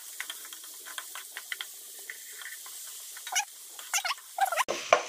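Chopped onions and curry leaves sizzling and crackling in hot oil in a metal kadai while they are sautéed and stirred with a wooden spatula. A few short, louder squeaks come between about three and four and a half seconds in.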